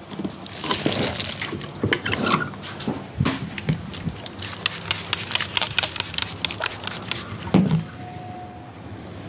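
Barber's hands massaging a client's head and shoulders: rubbing strokes and quick pats, with a run of rapid patting in the middle and one heavier thump near the end.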